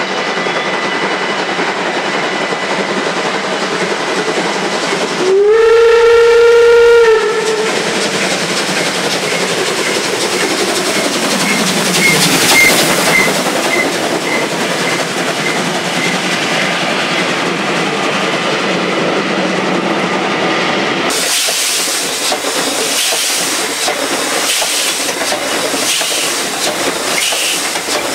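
Steam locomotive hauling a train, with steady running noise and steam hiss. About five seconds in it gives one long blast on its steam whistle, lasting about two seconds. A level-crossing bell rings with short repeated pips, and near the end the locomotive rolls past close with rhythmic clickety-clack.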